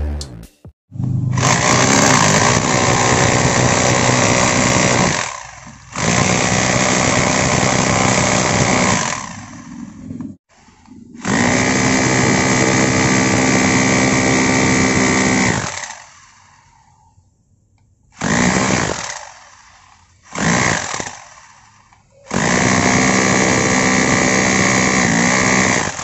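Bosch GBH 2-26 DRE SDS rotary hammer drilling into a concrete block. It runs in six spells of one to four seconds each with short stops between, a steady motor hum and hammering while it runs.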